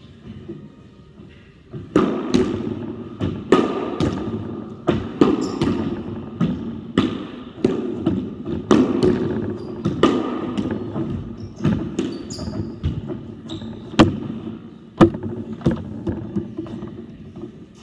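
A ball being struck with rackets and bouncing off the walls and wooden floor of a squash court, with running footsteps. Sharp echoing hits come about once or twice a second from about two seconds in, ending shortly before the end.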